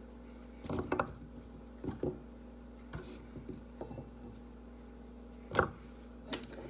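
A few scattered knocks and taps of food and utensils being handled and set down on a wooden cutting board, with one louder knock near the end.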